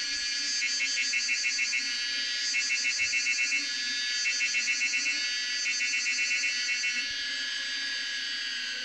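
Steady low hum of a clustered honey bee swarm under a steady high insect-like hiss, with four bursts of fast, even pulsing, each about a second long and about a second and a half apart, standing out above it.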